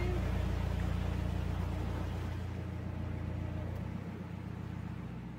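Narrowboat's diesel engine running at low revs, a steady hum that drops away and grows quieter over the few seconds as the boat slows into a lock.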